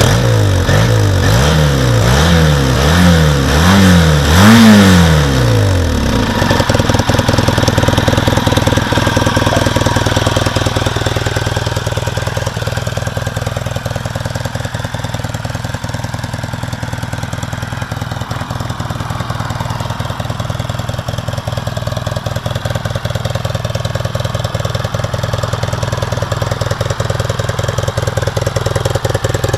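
Yamaha XTZ 750 Super Ténéré's parallel-twin engine through its original exhaust silencer, revved about five times in quick succession, the last rev the highest, then idling steadily.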